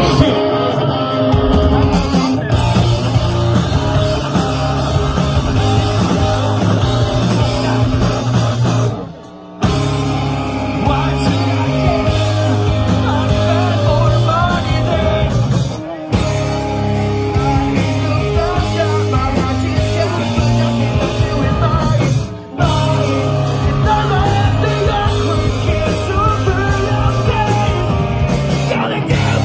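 Live pop-punk band playing loud: electric guitars, bass and drums with a lead vocalist singing into the microphone. The sound drops out briefly about a third of the way in, and dips twice more later.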